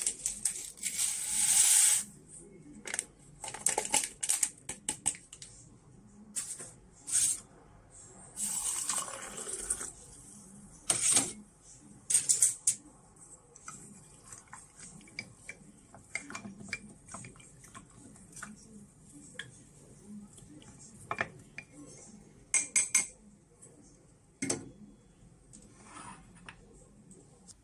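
Scattered clinks, taps and rustles of a drink being made in a glass mug, a wooden stirrer working in the dark liquid, with short rushes of noise near the start and about nine seconds in.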